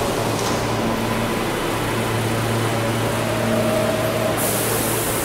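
Subway trains standing in the station, their equipment giving a steady hum, with a sharp burst of air hissing from the brakes about four and a half seconds in.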